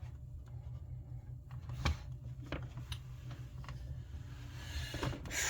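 Faint clicks and rustling of hands picking and peeling electrical tape off a wire harness, over a steady low hum. A few sharp clicks come about two to three seconds in, and the rustling grows louder near the end.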